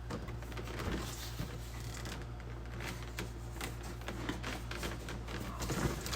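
Light rustling and small clicks of paper and cardboard packaging being handled, over a steady low electrical hum, with a busier burst of rustling near the end.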